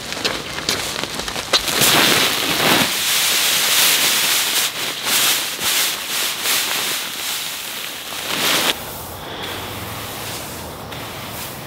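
Perennial ryegrass and Kentucky bluegrass seed pouring from a sack into a plastic spreader hopper: a steady hissing patter with crinkles from the bag. The pour stops abruptly about nine seconds in, leaving the softer scrape of a gloved hand smoothing the seed.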